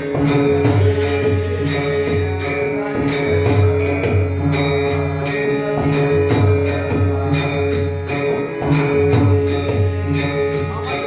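Instrumental passage of a Marathi devotional bhajan: a held drone with steady, rhythmic jingling metal percussion and a pulsing drum beat.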